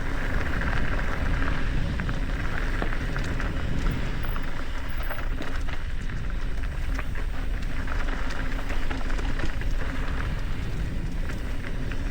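Mountain bike rolling over a rocky dirt trail: a steady crunch of tyres on gravel and rock, a low rumble, and dense little clicks and rattles from the bike.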